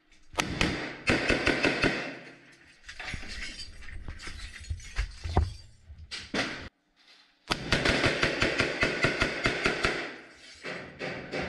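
Two long bursts of rapid automatic rifle fire, the first starting just after the beginning and the second about seven and a half seconds in, with a few scattered single shots or hits between them.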